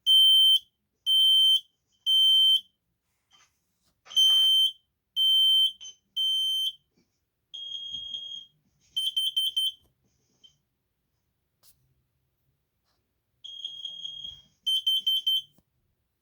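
Kidde P3010KCL combination smoke and carbon monoxide alarm sounding its self-test: two rounds of three loud, high-pitched beeps, the smoke-alarm pattern, then two quieter bursts of rapid short beeps, the kind a combination alarm gives for its carbon monoxide test.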